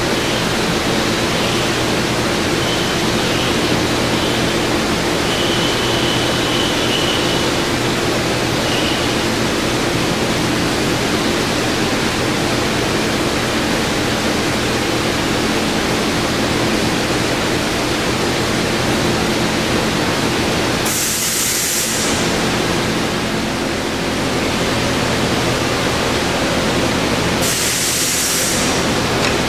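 Steady electric hum under an even hiss from the Kent KGS618 surface grinder, running under power. Two short, high hisses come about two-thirds of the way through and again near the end.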